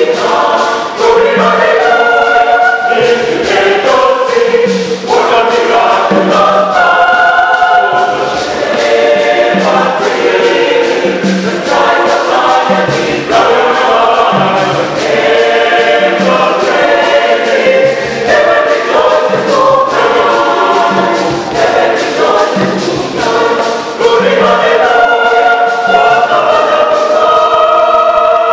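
Choir of women's and men's voices singing in harmony, sustained notes over a regular low pulse about once a second.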